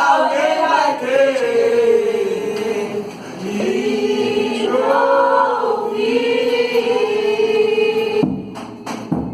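A choir singing sustained notes, ending on a long held note that stops about eight seconds in, followed by a few sharp knocks.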